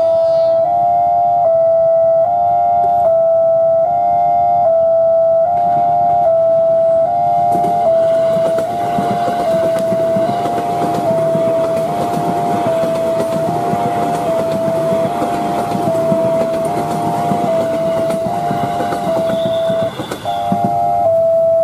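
Railway level crossing's electronic alarm sounding a repeating two-tone chime, alternating between a lower and a higher note. From about six seconds in, an electric commuter train rumbles past over the crossing under the alarm, clearing just before the end.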